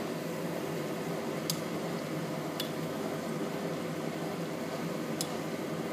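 Potato balls deep-frying in a pot of hot oil, a steady sizzle of bubbling oil. Three short sharp ticks are spread through it.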